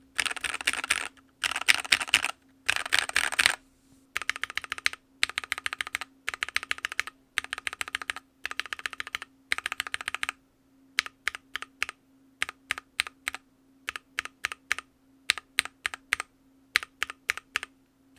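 Mechanical keyboard fitted with Gateron Milky Cap linear switches being typed on as a sound test. For about the first ten seconds it is fast continuous typing in bursts of a second or so; after that come single keystrokes tapped in small quick groups.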